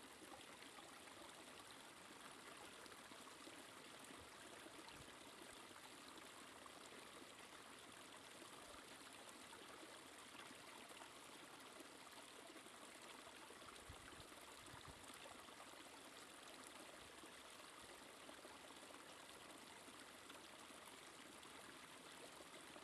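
Small woodland stream trickling steadily over rocks in a low waterfall, heard faintly as an even rush of water.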